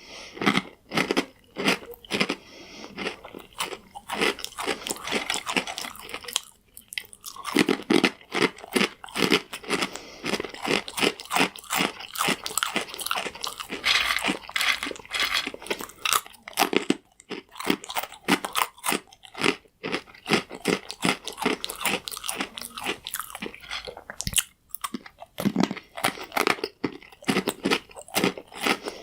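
Close-up chewing of hard, dry croutons: rapid, loud crunching and crackling bites, with a few short pauses between mouthfuls.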